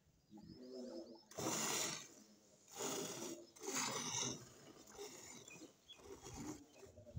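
Hand-milking: jets of milk squirting from the teats into a steel pail of frothy milk, each squeeze giving a short hiss. There are three louder hisses at about one-second intervals in the first half, then softer ones.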